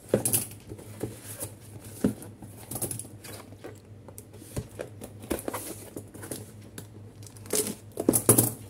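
Plastic shrink wrap crinkling and tearing as it is cut and pulled off a cardboard box with scissors, with irregular rustles and light knocks from the box being handled; the loudest burst of crinkling comes near the end.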